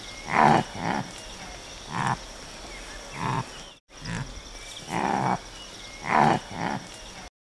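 Antelope calling: a series of short, rough calls spaced about a second or more apart, cutting off suddenly near the end.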